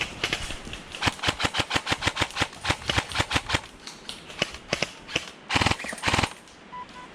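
Airsoft guns firing in rapid strings of sharp cracks for about three seconds. After a few scattered shots comes a dense burst about five and a half seconds in, which stops just after six seconds.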